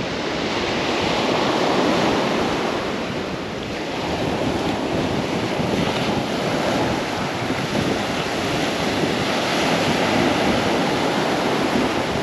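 Small waves breaking and washing up a sand beach in a steady rush, with wind buffeting the microphone.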